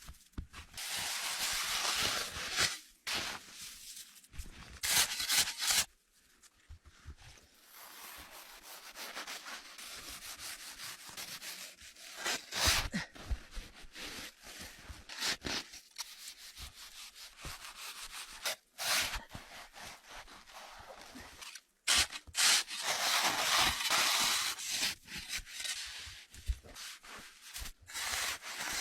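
Uneven strokes of a hand tool scraping and cutting into packed snow, carving away the walls of a snow dugout.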